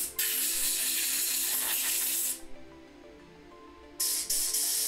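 Compressed air blowing hard on small carburetor parts to dry them of rinse water and clear water from the galleries: a long blast of about two seconds, then a shorter, broken blast near the end.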